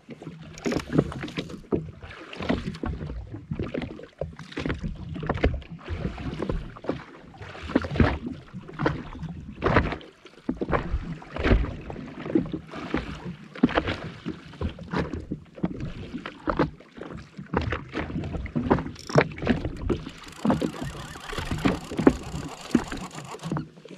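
Small waves slapping and splashing against the hull of a jet ski in irregular bursts, with a steady hiss over the last few seconds.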